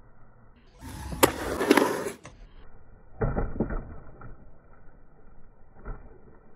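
Skateboard in a concrete bowl: sharp clacks and wheel rumble about one to two seconds in as the board lands, and another sudden loud rumble about three seconds in as the trucks meet the coping, fading into quieter rolling.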